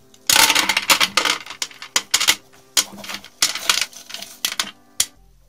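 Small lead fishing-net sinkers clinking and clattering against each other as they are tipped out, a dense run of metallic clicks that stops about five seconds in.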